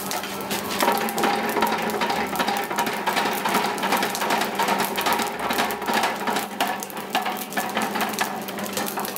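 Red-hot iron being forged with rapid hammer blows, many strikes a second, over a steady low hum.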